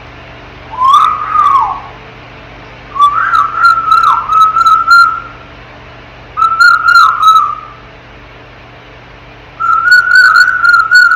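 African grey parrot whistling: four whistled phrases, each a held tone with quick dips in pitch, the first short and the later ones about one to two seconds long.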